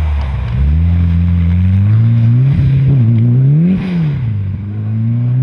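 Mitsubishi Lancer Evolution IX's turbocharged four-cylinder engine revving up and down as the car drifts through snowy corners, its pitch climbing and dropping several times and highest about four seconds in.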